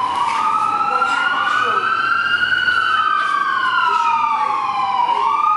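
Siren wailing, its pitch sweeping slowly up and down every few seconds, with a second wail overlapping out of step.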